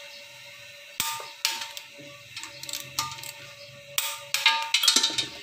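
Sharp metallic clicks from a torque wrench and socket tightening the piston oil-jet bolts in a Mitsubishi L300 diesel engine block, torqued to 3–3.5 kg. The clicks come singly a few times, then in a quick run near the end.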